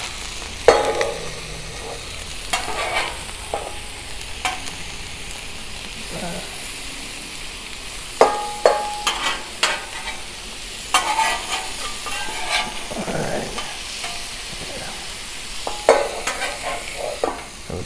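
Shrimp sizzling in oil on a Blackstone steel flat-top griddle, broken by sharp metal clacks and scrapes from a spatula and a bench scraper as the shrimp are turned and chopped. Near the end the stainless basting dome clanks down over them.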